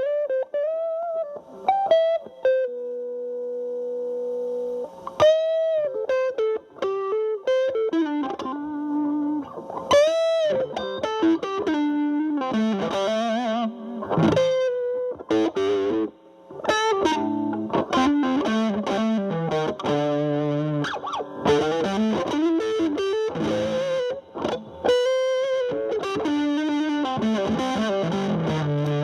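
Electric guitar (Fender Stratocaster) through a Boss DS-2 Turbo Distortion pedal in turbo mode, into a Marshall Valvestate amp's clean channel, playing a single-note lead with string bends, vibrato and a long held note about three seconds in. The distortion is set so the tone cleans up.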